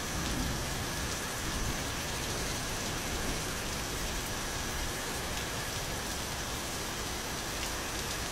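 Steady rain falling, an even hiss with scattered drop ticks, over a faint steady high-pitched tone.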